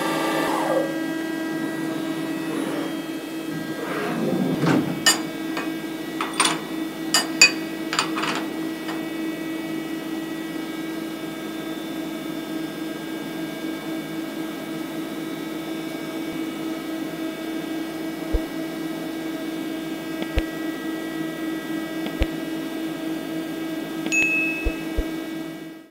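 CNC milling machine: the cutting noise of the end mill in a beetroot stops within the first second, a short falling whine follows about four to five seconds in, then several sharp clicks and knocks. After that only the machine's steady hum is left, with a few faint ticks.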